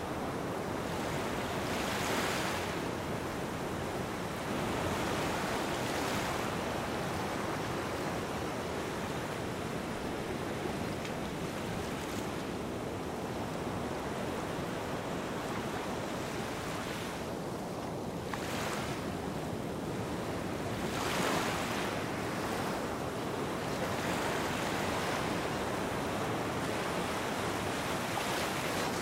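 Small waves washing onto a sandy beach: a steady rush of surf with a wave swelling up and breaking every few seconds.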